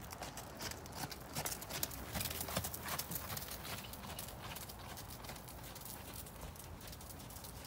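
Hoofbeats of a ridden horse in a steady run of soft strikes, clearest in the first half.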